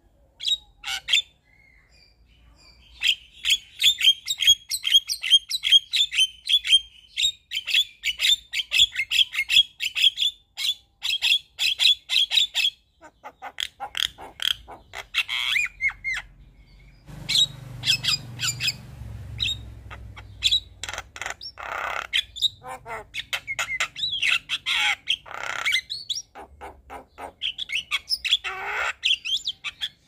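Javan myna singing a long, fast, varied song: first a quick run of repeated high chips and chatter lasting about ten seconds, then harsher squawks, rasps and whistles.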